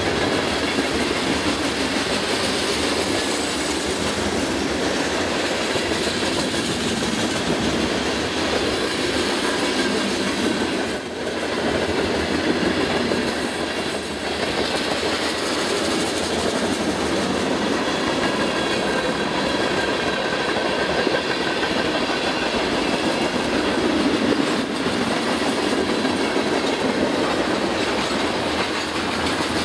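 Mixed freight train's covered hopper and tank cars rolling steadily past close by: a continuous rumble and clatter of steel wheels on the rails.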